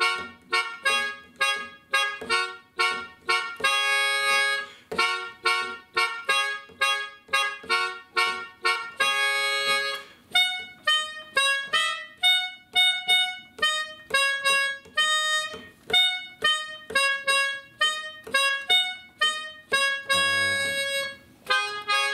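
Melodica playing short, evenly spaced staccato notes, about two a second: chords at first, then a single-note melody line from about halfway through.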